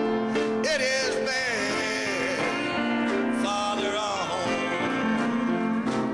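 A man singing a gospel song into a microphone over piano accompaniment, his voice sliding and bending on long held notes.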